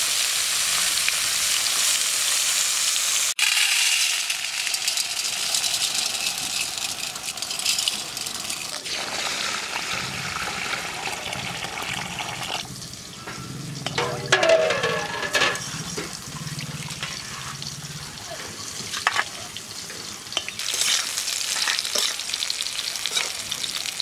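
Bitter gourd slices sizzling as they fry in hot mustard oil. About nine seconds in, the sound changes to a stream of water pouring onto red lentils as they are rinsed. The frying sizzle returns near the end, with the slices being turned by a spatula.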